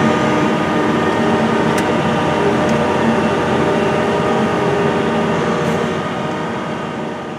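Case IH Steiger 420 four-wheel-drive tractor's diesel engine running steadily under load while pulling a 16-row corn planter, heard from inside the cab as a steady drone with several held tones. It fades out near the end.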